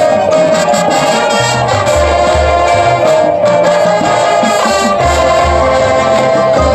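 High school marching band playing: brass holding sustained chords over low bass drum beats.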